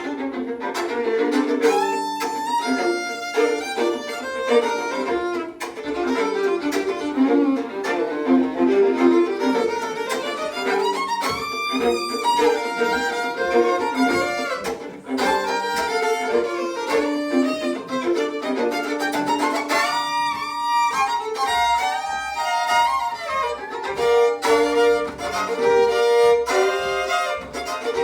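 Two fiddles playing a tune with chop bowing: scratchy, percussive bow chops in a steady rhythm under the melody notes.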